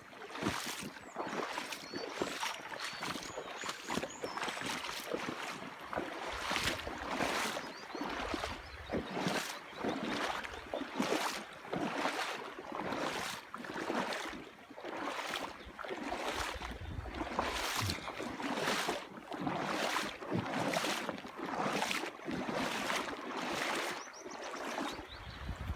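Footsteps wading through a shallow river: a splash and slosh of water with each stride, about one step a second. Low wind rumble on the microphone comes and goes.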